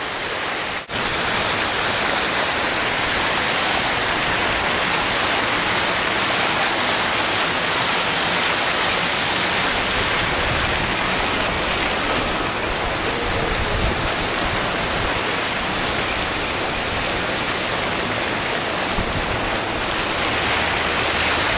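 Splash-pad water jets spraying and splashing onto the wet ground: a steady, loud hiss of falling water, broken once for an instant about a second in.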